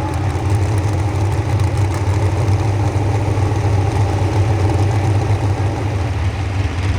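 Pro stock pulling truck engine idling loud and steady, a deep, even rumble with no revving.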